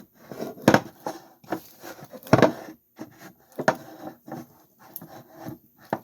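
Homemade slime being kneaded and squished in the hands: irregular squelches and clicks, with a few sharper knocks.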